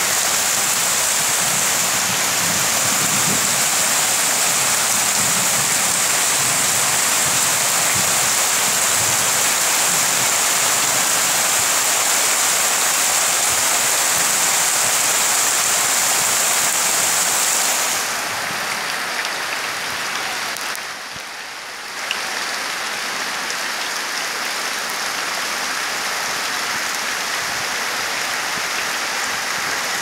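Heavy monsoon rain falling steadily on leaves and bare ground, a continuous hiss. It turns a little quieter a bit past halfway, with a brief lull, then carries on evenly.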